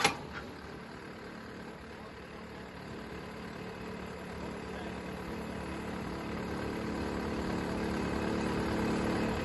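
Solar pile driver's engine running steadily with its hammer stopped, getting slowly louder.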